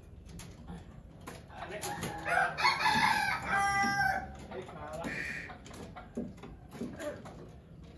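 A rooster crows once, a long call of about two seconds that ends on a held note, with light clicks and knocks around it.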